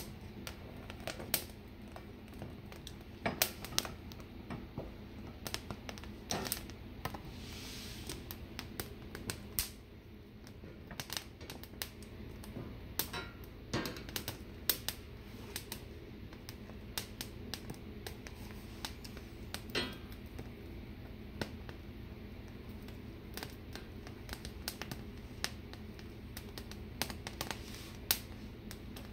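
Poblano peppers charring directly on a gas burner flame: irregular sharp crackles and pops from the blistering skins, over a steady low burner rush.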